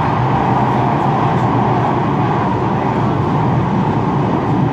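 Steady running noise inside a moving Manchester Metrolink tram at a constant speed, with a low hum under an even rushing noise.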